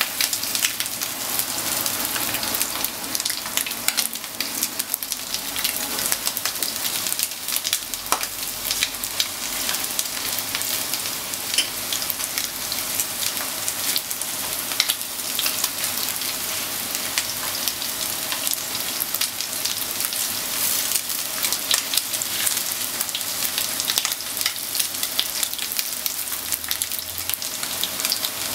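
Coated chicken pieces sizzling in shallow oil in a frying pan: a steady frying hiss with frequent small pops and crackles as the pieces are turned with chopsticks.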